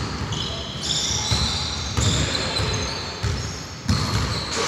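Basketball being dribbled on a court floor, bouncing in irregular thuds, with short high-pitched squeaks over it.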